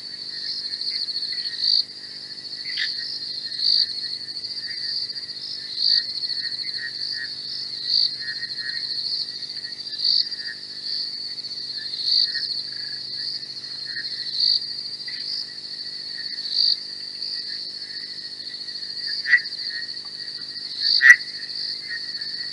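Night chorus of insects: a steady high-pitched trill that swells about every two seconds, with scattered lower chirps beneath it. Three sudden sharp sounds cut through, the loudest near the end.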